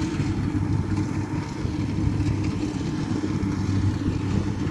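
Kubota DC60 combine harvester's diesel engine running steadily under load while it cuts rice, a constant low drone.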